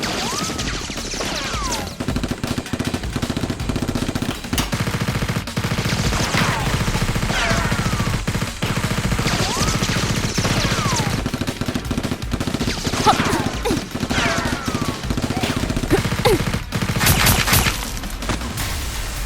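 Rapid automatic gunfire, long runs of fast shots with short gaps, with whistling sweeps falling in pitch scattered between them and a loud cluster of shots near the end.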